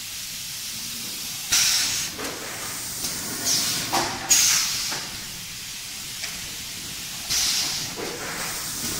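Pneumatic air cylinders on a popcorn cup filling and sealing machine venting compressed air in several short, sharp hisses, about four in nine seconds, over the steady hiss of the running line.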